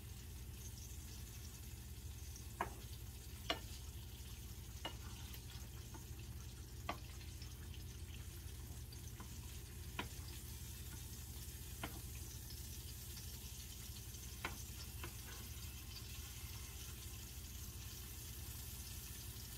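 Pepperoni and raspberries frying faintly in a skillet, with a plastic spatula stirring and knocking sharply against the pan every couple of seconds, over a steady low hum.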